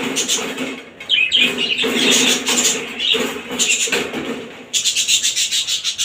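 Caged birds chirping in short, irregular high calls, ending in a fast run of high, rattling pulses about five seconds in.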